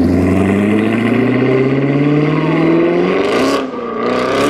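C7 Chevrolet Corvette's V8 accelerating hard away, its engine note climbing steadily, breaking off briefly about three seconds in as it shifts up, then climbing again.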